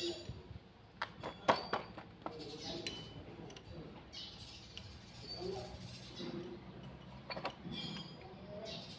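Scattered metal clicks and knocks of hand tools on a tractor's front hub and steering knuckle housing during disassembly, a quick cluster about a second in and a few single knocks later.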